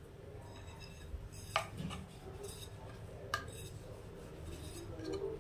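Quiet handling sounds of dough and a wooden rolling pin on a wooden rolling board: a few light knocks and clicks, the two clearest about a second and a half and three and a half seconds in, over a faint low hum.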